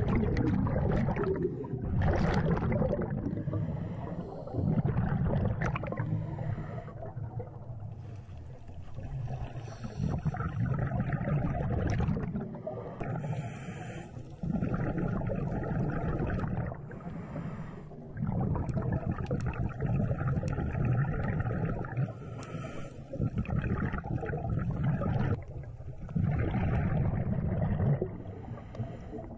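Scuba diver breathing through a regulator underwater: exhaled air bubbling out in low rumbling surges every few seconds, with quieter breaths in between.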